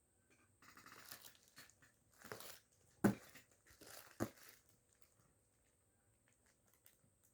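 Parcel packaging rustling and tearing as a box is opened by hand, with two sharp knocks about three and four seconds in.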